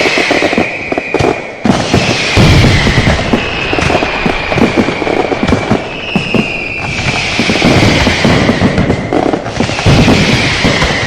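Fireworks and firecrackers going off in a dense, rapid crackle of pops and bangs. Over it, a high whistle glides slowly downward and comes back every few seconds.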